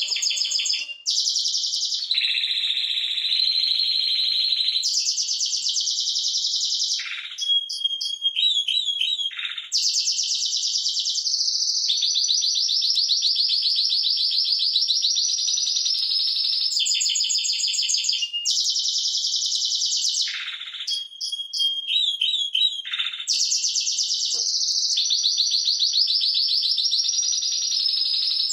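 Timbrado Español canary singing a long unbroken song of fast rolling trills, changing phrase every second or two, with two short runs of separate repeated notes.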